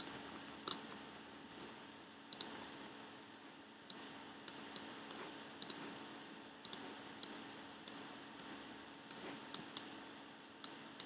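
Computer mouse and keyboard clicks: about twenty short, sharp clicks at irregular intervals, often in close pairs, over a faint steady low hum.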